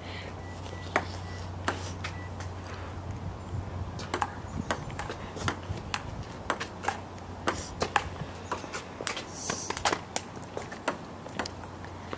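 Table tennis rally: the ping-pong ball clicks in quick alternation off the paddles and the table, a sharp tick every half second or so.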